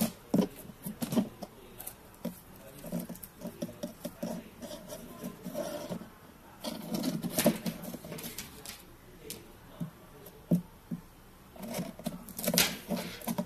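Hands working radial component tape and splice tape: irregular light clicks, taps and rustles, busier about seven seconds in and again near the end.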